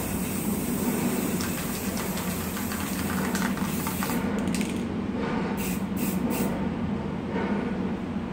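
Aerosol spray paint can hissing in a continuous spray for about the first four seconds, then stopping. A few short clicks of metal spray cans being handled follow.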